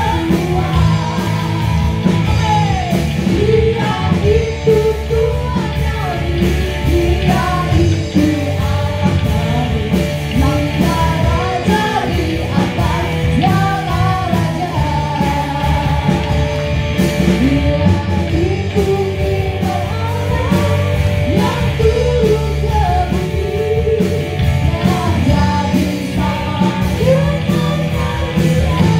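Church worship band music with a steady beat, drums and bass under a sung melody.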